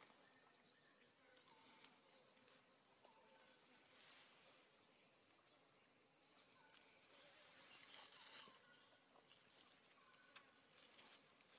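Near silence: faint outdoor forest ambience with soft, scattered high bird chirps and a few tiny clicks.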